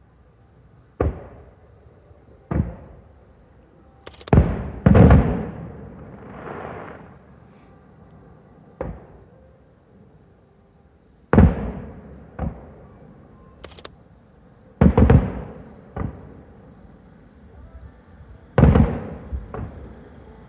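Aerial fireworks shells bursting overhead: about a dozen sharp booms at irregular intervals, some in quick pairs, each followed by a rolling echo. The loudest come about four to five seconds in and again near the middle.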